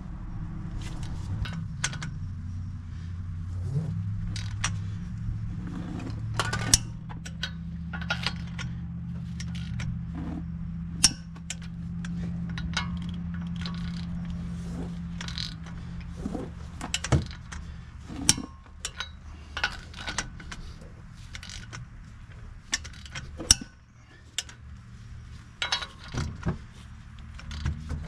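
Torque wrench ratcheting as nuts on a wheel spacer are tightened to 130 ft-lb, with irregular metallic clicks and knocks over a steady low hum.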